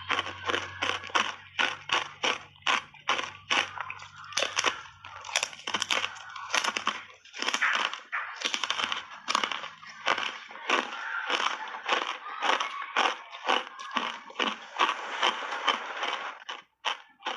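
Hard ice coated in matcha powder being bitten and chewed: a steady run of sharp crunches, about three a second.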